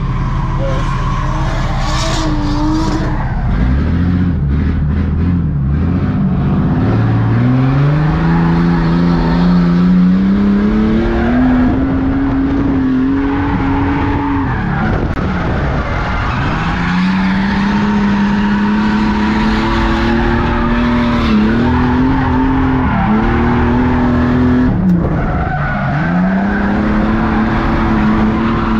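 Ford Falcon drift car's engine revving hard through a drift, its pitch climbing for several seconds and then falling off and climbing again several times, with tyres skidding under it.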